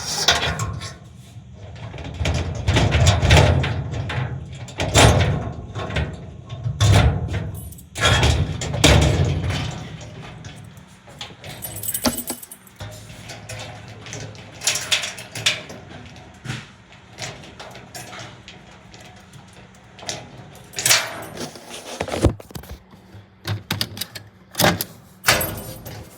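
A door lock being worked: a series of sharp metallic clicks and rattles from the latch and bolt, with heavier low thuds in the first ten seconds.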